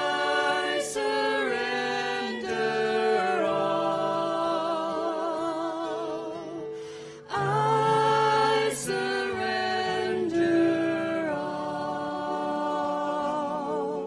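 A woman and a man singing a slow hymn with long, held notes and vibrato over acoustic guitar accompaniment, with a short pause for breath about seven seconds in.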